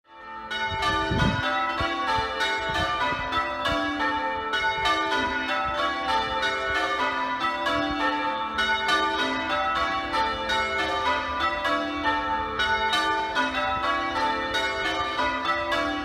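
The tower's ring of six church bells being change rung, strike following strike in an even, unbroken stream. The bells are Mears of Whitechapel castings with an 8-2-21 cwt tenor in A-flat. The ringing fades in from silence over the first half-second.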